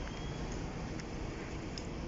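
Steady outdoor background noise with a low rumble, and one faint click about a second in.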